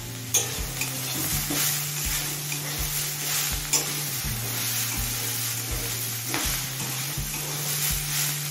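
Metal spatula stirring and scraping flat beans, shrimp heads and fried onions around a metal kadai, with repeated scrapes over a steady sizzle of frying.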